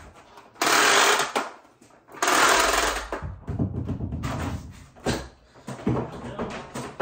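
A towel rustling and swishing close up as it is spread and smoothed over a table by hand. There are two loud swishes in the first three seconds, then softer rubbing and light knocks.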